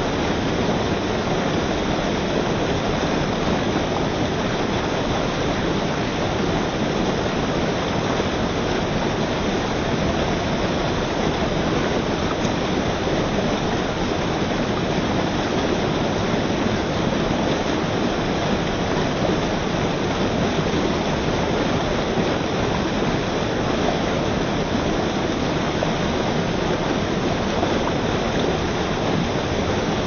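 White water rushing and splashing over rocks in a fast stream, a steady, unbroken rush.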